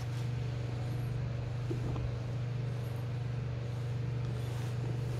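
A steady low hum with a fine rapid pulse, even in level, with a few faint soft clicks over it.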